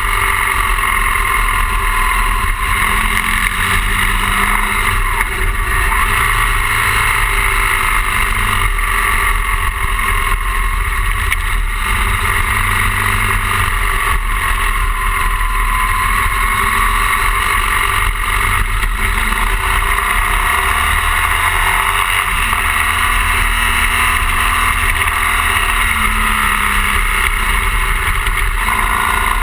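A BMW R 1200 GS boxer twin engine running on the move at moderate revs, its pitch rising and falling gently as the throttle changes, under a steady rush of wind noise.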